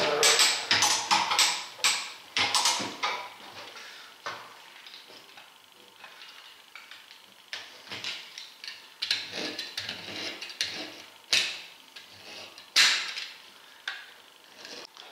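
Knife cutting a strip of tread rubber off an Omsk OI-25 truck tyre while long-handled locking pliers pull the strip back: quick sharp scrapes and clicks in the first three seconds, then sparser cuts, two of them louder near the end.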